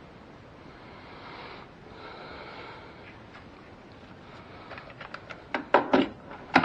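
Faint rubbing, then a run of sharp clicks and taps from about five seconds in, loudest near the end: an engine dipstick being wiped with a rag and handled against its metal tube.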